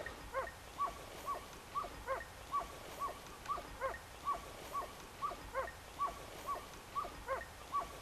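Hunting dogs barking in a steady, rhythmic series, about two barks a second from two dogs, one with a level bark and one with a higher, arching one: hounds giving tongue while driving wild boar.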